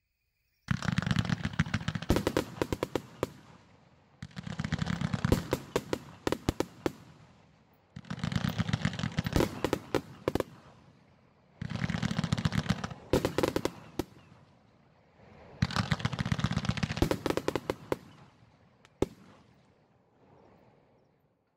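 A 100-shot, 1.2-inch fireworks cake firing in five rapid volleys of about three and a half seconds each, every volley a dense run of shots fading into crackle. One lone sharp report comes near the end.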